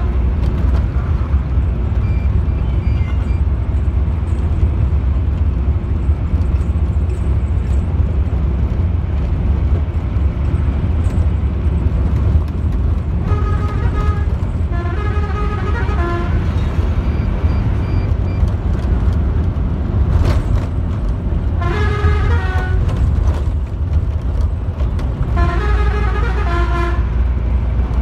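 Heavy bus engine droning steadily, heard from inside the cab. In the second half, a multi-tone horn sounds in several short bursts, its pitch stepping up and down.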